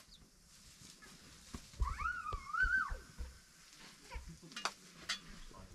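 Footsteps crunching on a gravel floor, with scattered small clicks. About two seconds in, a single high, wavering animal call that rises and then falls, lasting about a second.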